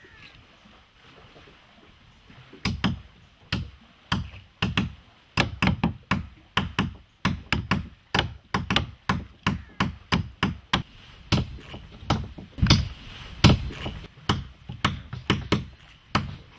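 Steady hammering, about two blows a second, starting near three seconds in: a hammer striking a punch to drive plugs of tightly packed coconut fibre into the stitch holes of a sewn boat's planking.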